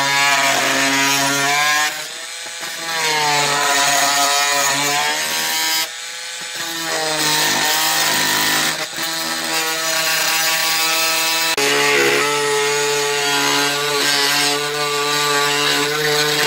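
Oscillating multi-tool with a wood-cutting blade plunge-cutting straight down into a painted wooden porch board: a steady buzzing whine whose pitch sags and recovers several times as the blade is pressed into the wood. It eases off briefly about two and six seconds in.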